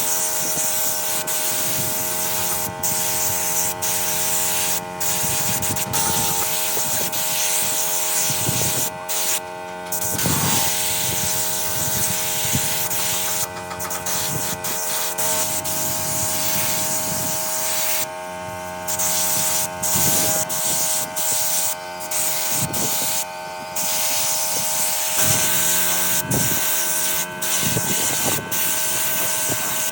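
Steady hissing with a machine hum of several steady tones underneath, broken by brief cuts every few seconds.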